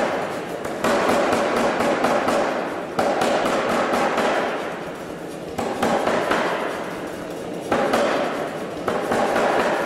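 Anyang 25 kg (C41-25) self-contained pneumatic forging hammer striking a glowing steel bar in several bursts of rapid blows, with the machine running between bursts.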